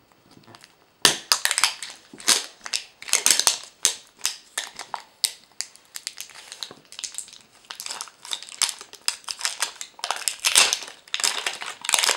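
The printed plastic wrapper of a Zuru 5 Surprise toy ball being peeled and torn off by hand: dense, irregular crinkling and crackling that starts about a second in.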